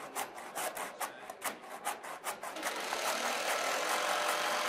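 Handsaw cutting back and forth through a miter joint in a wooden top rail, in quick strokes about four a second that merge into a steadier rasp about three seconds in. The saw is trimming both faces of the joint at once so the miter closes up tight.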